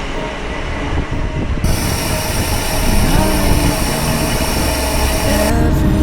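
A background pop song in a gap between sung lines, over a dense, steady rumble and rattle.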